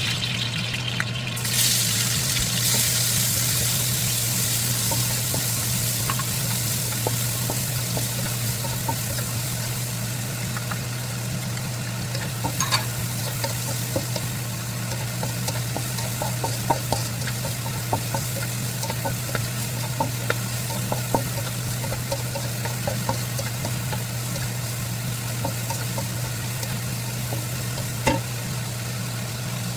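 Onion and garlic sizzling as they fry in oil in a pan, with scattered light clicks of a utensil stirring them, over a steady low hum.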